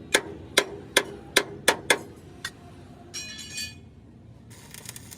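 Hammer striking steel in a quick run of about six blows over two seconds, then a short ringing metallic clink a little after three seconds in, and a faint rattle near the end.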